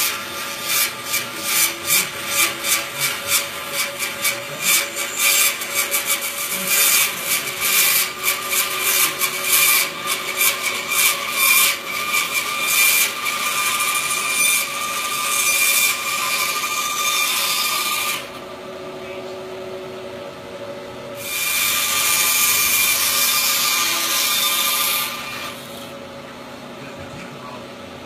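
Wood being worked by hand with an abrasive, in quick rhythmic strokes about two or three a second. The strokes give way to continuous rubbing, which stops about 18 seconds in, resumes about 21 seconds in and stops again near the end.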